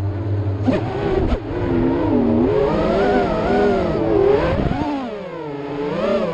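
FPV racing quadcopter's four Racerstar 2205 2600 kV brushless motors spinning DAL 5045 three-blade props, a buzzing whine whose pitch swoops up and down as the throttle is blipped and eased. A low rumble sits under it for about the first second and a half.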